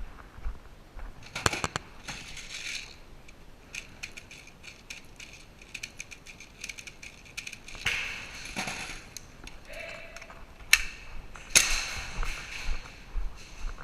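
Sharp clicks, knocks and rattles from an airsoft close-quarters game, with a few louder cracks: one about a second and a half in, one around eight seconds, and two close together near the end.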